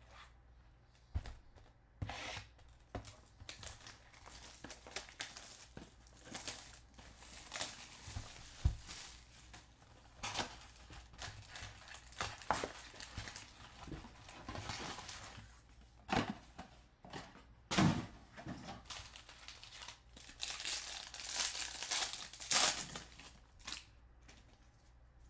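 Foil wrappers of 2020 Bowman Draft baseball card packs being torn open and crinkled by hand, in irregular bursts of crackling, with the loudest rips near the end.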